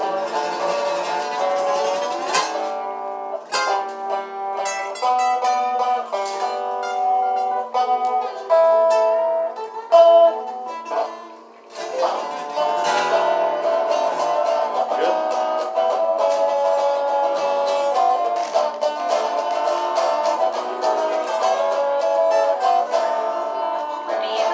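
Acoustic plucked-string music: a picked melody over a rhythm accompaniment on a second instrument, playing an old-time folk tune, with a brief dip in loudness about halfway through.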